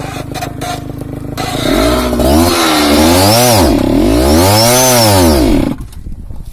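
Small-engined trail motorcycle running, then revved hard twice, the pitch swelling up and falling back each time, as the bike strains on a steep climb. The engine drops back sharply near the end.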